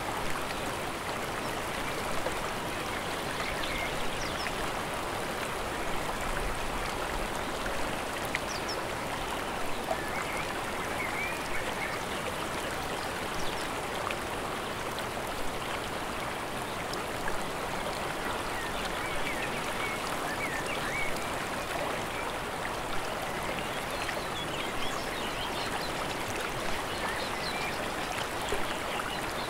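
Steady rushing of fast mountain water, with a few faint short bird chirps now and then.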